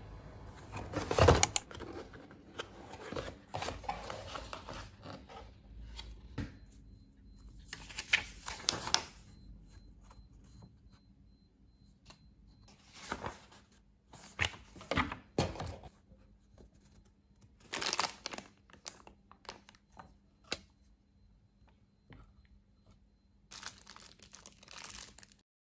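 Plastic bags and paper packaging of an LED strip light kit being handled and opened: crinkling and rustling in separate bursts of a second or two with short quiet gaps, the loudest about a second in.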